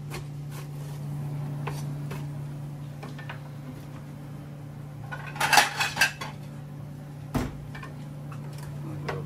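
Kitchen utensils clinking and knocking against dishes and pans, with a short cluster of sharp clinks a little past the middle and a single knock soon after. A steady low hum runs underneath.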